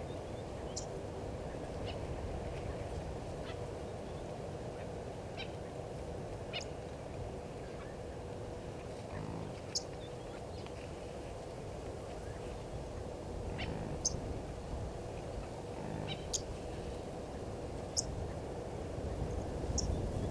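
Waterhole ambience: scattered short, high bird chirps over steady low background noise, with a faint steady hum and a faint low call about nine seconds in.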